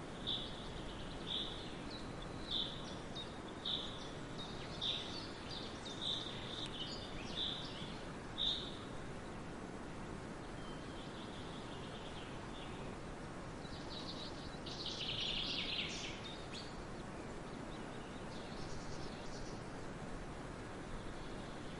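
Wind rushing steadily through a grain field, with a bird repeating a short high chirp about once a second for the first eight seconds, then a brief burst of twittering a little past the middle and a few fainter chirps near the end.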